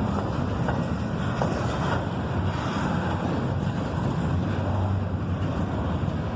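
Freight train rolling past, a steady low rumble of wheels on rail with some wind on the microphone.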